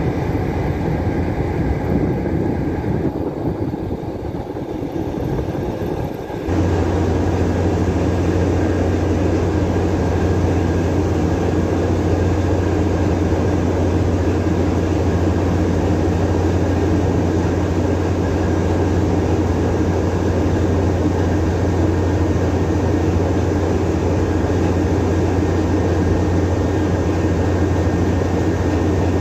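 Ship's engine running with a steady low drone as the vessel moves through the water. About six seconds in the sound steps up suddenly from a rougher, unsteady rumble to a louder, even drone.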